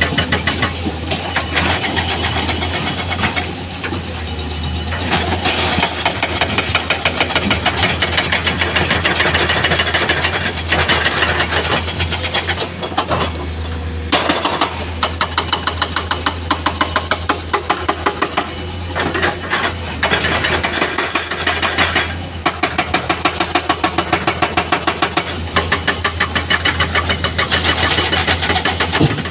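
Heavy diesel engine of earthmoving machinery running, its rapid rhythmic firing pulses growing sharper and stronger in several stretches as the load on it changes.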